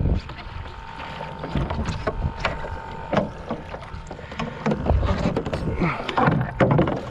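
Handling noise on a stand-up paddleboard while a hooked tarpon is fought: irregular knocks and clicks from the rod and board over water sloshing and low rumble, with a faint steady tone through the first few seconds.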